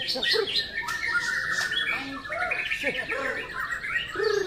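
Several caged white-rumped shamas (murai batu) singing at once, a dense tangle of overlapping whistled phrases and quick chirps with no pause.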